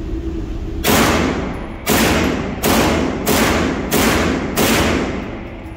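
Six gunshots in quick succession, each followed by a short reverberant tail off the walls of an indoor range.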